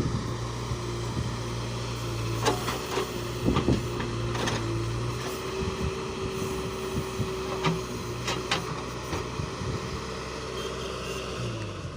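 Diesel engines of a JCB 3DX backhoe loader and a tractor running steadily while mud is loaded into a tractor trolley, with several sharp knocks and clanks. A low engine hum drops away about five seconds in.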